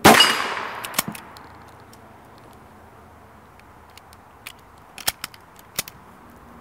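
A single .22 LR shot from a Mini Fugly Mosin bolt-action pistol, with a ringing tail that fades over about a second and a half and a sharp knock about a second in. From about four and a half seconds in, a short run of metallic clicks as the bolt is worked to chamber the next round.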